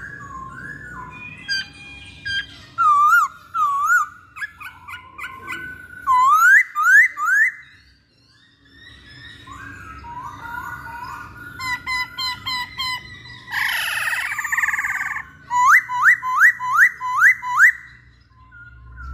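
Masked laughingthrush (poksay Hongkong) singing: varied whistled and chattering phrases broken by quick runs of loud upslurred whistles, about six in a row midway and seven more near the end. Around the middle there is a harsh rasping call.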